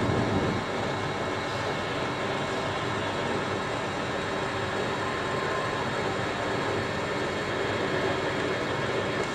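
Metal lathe running steadily while single-point cutting an M18 x 1.5 metric thread, its motor and gear train making a constant hum.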